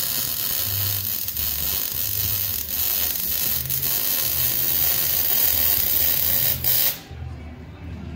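Electric arc welding on steel exhaust pipe: a steady crackling hiss from the arc that cuts off suddenly about seven seconds in.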